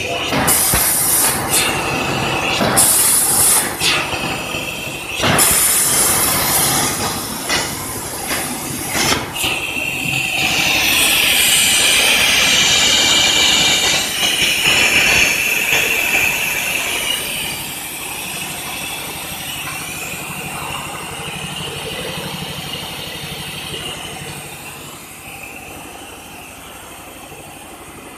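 LGK 63A air plasma torch on a CNC cutting table cutting steel sheet. The arc hisses loudly in several short bursts as it cuts small holes, then runs in one longer steady cut from about ten to sixteen seconds in. After that the hiss dies away to a quieter steady hum.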